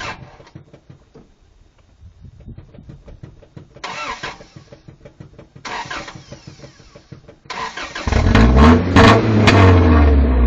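Vehicle engine being cranked on the starter for several seconds, with three brief louder bursts during the cranking. It catches about eight seconds in and runs loudly, rising and falling in pitch as it is revved.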